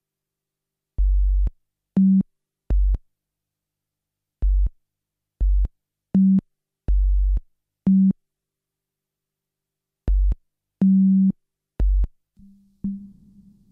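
Sparse electronic music: short synthesized pulses, alternating between deep bass thuds and beeping tones around 200 Hz, separated by complete silence in an uneven rhythm. Near the end a steady low synth drone comes in.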